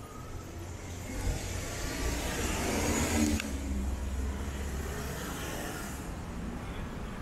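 A motor vehicle driving past, its engine and tyre noise building to a peak about three seconds in, then a low engine rumble that fades off.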